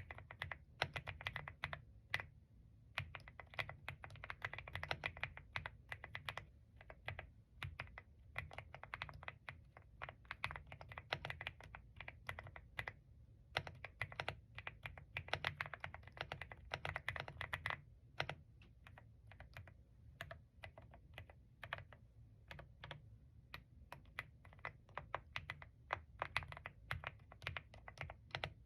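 Typing on a creamy-sounding mechanical keyboard: fast runs of soft, rounded keystrokes with brief pauses between bursts.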